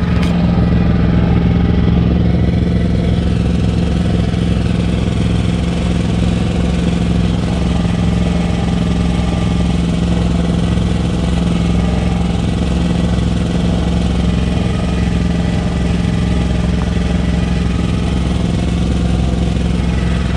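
Lawn mower engine running steadily, its pitch holding constant, a little louder in the first two seconds.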